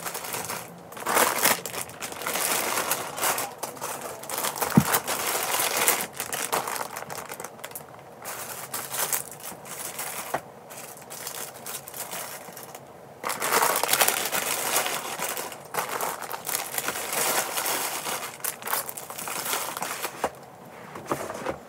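Plastic packaging and bags crinkling in bouts as squishy toys are handled and packed into plastic storage drawers, with a few sharp clicks and knocks among them.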